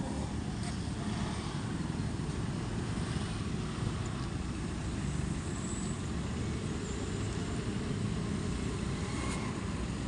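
Steady road traffic noise, a low even rumble with no distinct events.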